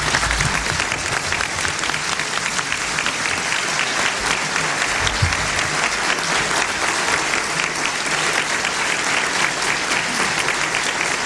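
Audience applauding, a dense steady clatter of many hands clapping that breaks out suddenly right at the start and keeps on undiminished.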